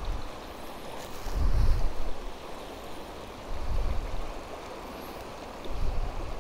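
Fast, swollen river rushing steadily, running high and strong with winter rainwater. Low rumbling bumps on the microphone come and go about every two seconds.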